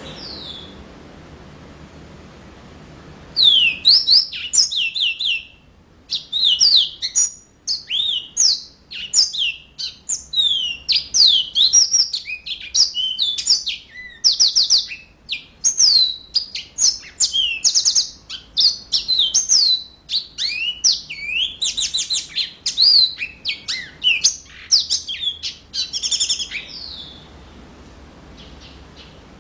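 Yellow-fronted canary (Mozambique canary) singing a long, fast, continuous song of whistled notes, quick sweeps and trills. The song starts a few seconds in and stops near the end, after a single short falling call at the very start.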